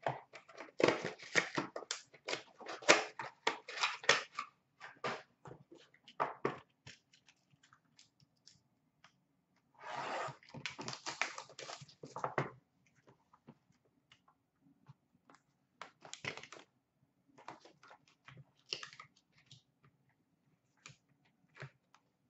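Hands tearing open and handling the plastic wrap and cardboard of sealed hockey card boxes, in bursts of crackling rustle. The busiest bursts come in the first few seconds and again about ten to twelve seconds in.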